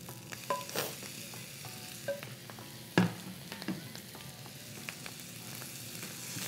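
Fried rice sizzling in a metal frying pan as crab curry is scraped in and stirred with a wooden spoon, with small clicks and scrapes of the spoon against the pans. One louder knock comes about three seconds in.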